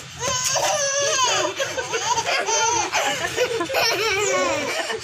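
Baby laughing and squealing in a run of high-pitched, wavering bursts.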